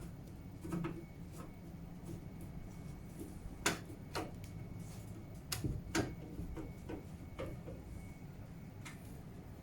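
Irregular light clicks and knocks of computer parts and cables being handled inside a PC case during assembly, the two loudest about a third and two thirds of the way through, over a low steady hum.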